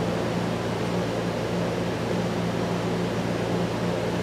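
Steady fan-like machinery hum, with a constant low drone and no separate knocks or clicks.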